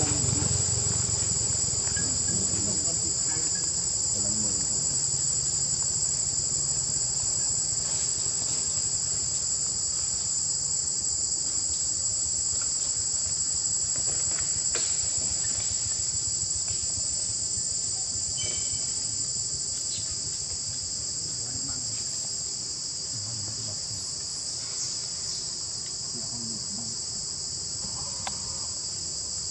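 Insects chorusing in a steady, high-pitched buzz that holds without a break, with a few faint clicks beneath it.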